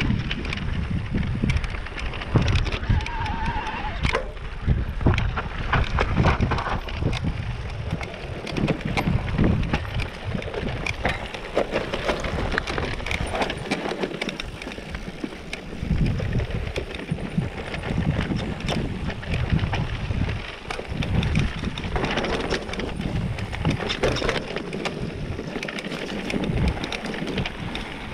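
Mountain bike riding down a rocky dirt singletrack: tyres crunching over dirt and stones, with frequent clicks and rattles from the bike, and wind buffeting the microphone as a low rumble.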